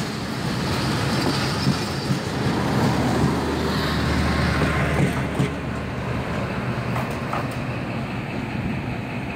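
Passenger train passing alongside at close range: coaches rumbling and wheels clattering on the rails, with a steady low locomotive engine hum in the middle. After about five seconds the hiss and clatter thin out, leaving a steadier rumble.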